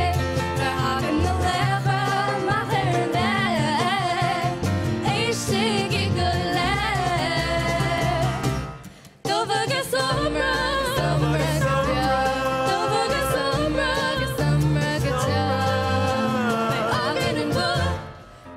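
Two young women singing a song in Irish, backed by a small folk band of acoustic guitar, mandolin, double bass and accordion. The music dies away briefly about nine seconds in and starts again, then falls away near the end.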